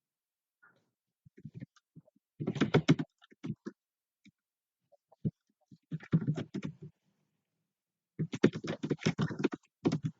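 Typing on a computer keyboard in several short bursts of rapid key clicks, with silence between them.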